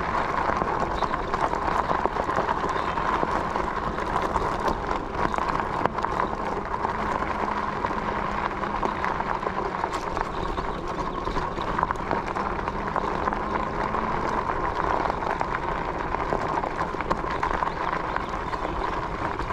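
Electric bike riding on a dirt and gravel trail: tyres crunching and rattling steadily over the ground, with a steady whine from the 500 W rear hub motor running on throttle.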